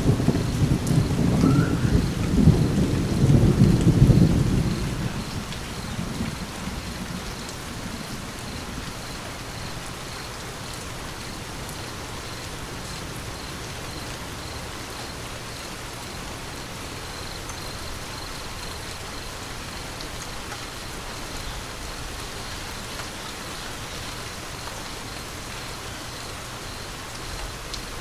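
A roll of thunder rumbles loudly through the first few seconds and dies away by about six seconds in, leaving steady rain falling.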